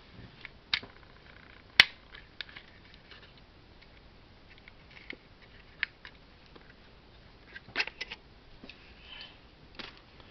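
Mechanical clicks of a FED 3 rangefinder camera, its shutter being fired and wound while its speeds are checked after repair. The loudest is one sharp snap about two seconds in, with softer clicks and clatter scattered around it.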